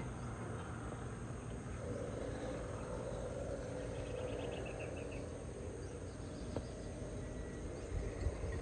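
Outdoor ambience over a steady low rumble, with a short, rapid, high insect trill about four seconds in.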